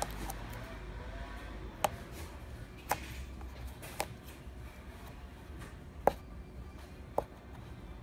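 Handling noise from fingers working at a 3D puff-embroidered cap held in an embroidery machine's cap frame: five sharp clicks at irregular spacing, about one a second, each with a brief ring, over a low steady hum.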